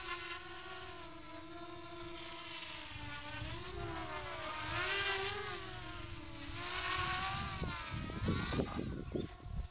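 Quadcopter with Cobra 2204 2300kv brushless motors and Gemfan 5040 propellers hovering low, a steady buzzing whine that rises and falls in pitch as the throttle changes. A low gusty rumble comes in near the end.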